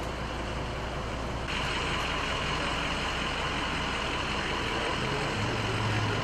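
Steady outdoor street noise with vehicle engines running, changing abruptly about a second and a half in. A low engine hum grows louder near the end.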